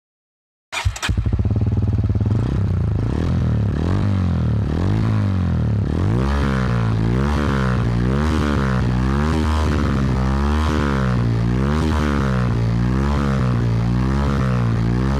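Bajaj Pulsar motorcycle's single-cylinder engine running through its exhaust, starting abruptly about a second in and holding a steady level, with a regular wavering in pitch that repeats a little under once a second.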